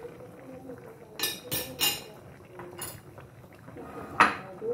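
Dishes and utensils clinking and knocking a handful of times, sharp and short, the loudest near the end, over a faint steady hum.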